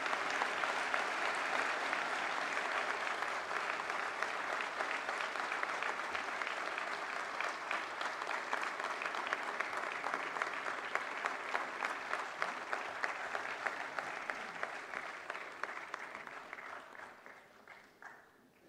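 Audience applauding, a steady sustained clapping that fades away over the last couple of seconds.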